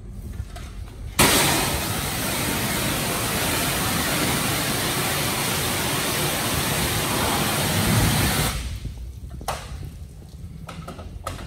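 Hand-held pressure-washer wand spraying water in one steady hiss of about seven seconds, starting abruptly a second in and cutting off sharply, with a low rumble underneath.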